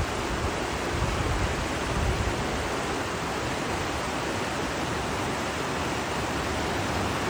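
Alpine waterfall: falling water making a steady, even rush with a low rumble underneath.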